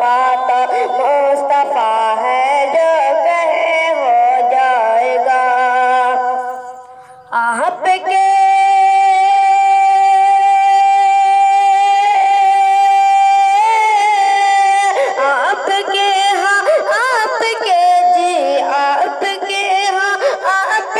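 A boy singing a naat, an Islamic devotional song, in a winding melodic line. It dips briefly about seven seconds in, then holds one long steady note for about five seconds before the melody resumes.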